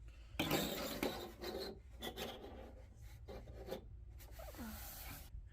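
Plastic playset pieces being handled and pushed into place, plastic scraping and rubbing against plastic in irregular bursts, busiest in the first couple of seconds.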